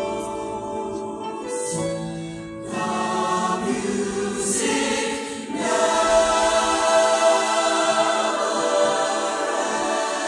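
Mixed-voice show choir singing held chords, growing louder about six seconds in.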